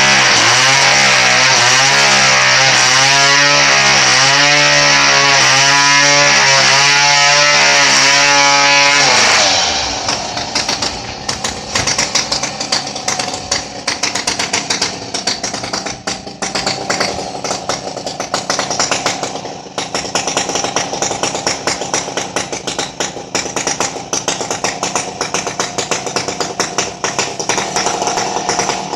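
Music with melodic, wavering notes over a steady bass line, which stops abruptly about nine seconds in. A two-stroke chainsaw engine then runs with a fast, uneven rattle.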